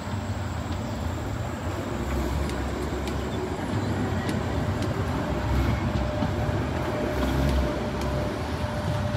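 Sheffield Supertram tram running with a steady low rumble. A faint steady whine comes in about halfway through.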